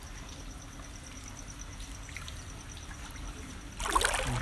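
Shallow floodwater splashing and sloshing loudly about four seconds in, over a faint, steady, high pulsing chirp of insects.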